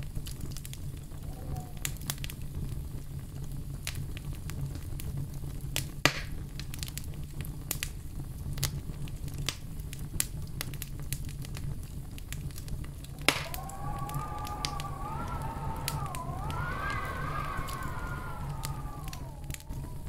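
Wood fire burning in a fireplace: a steady low rumble with frequent crackles and two sharp pops, about 6 and 13 seconds in. After the second pop a thin whistling tone rises and falls in pitch to the end.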